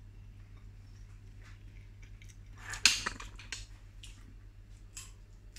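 Light clinks and knocks of cutlery and crockery on a kitchen counter, with a louder clatter about three seconds in, over a low steady hum.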